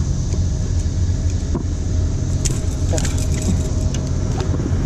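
Small outboard motor running steadily at low speed, a constant low drone. A few light metallic clicks from fishing pliers and tackle sound over it.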